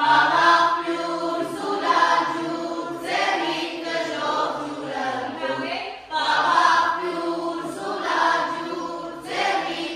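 A group of voices singing a folk song together, in sung phrases that each start about three seconds after the last.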